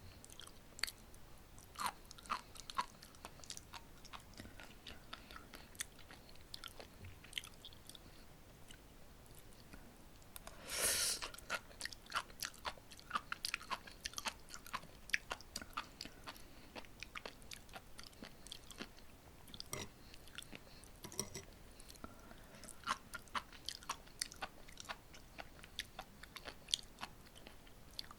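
Close-miked chewing of sea grapes: many small, sharp pops and clicks as the little seaweed beads burst in the mouth, with a louder, denser burst about eleven seconds in.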